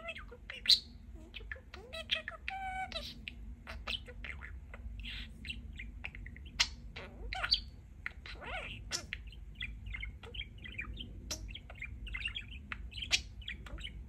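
Pet budgerigar chattering: a continuous stream of quick chirps, clicks and warbles, mixed with mimicked words such as "play".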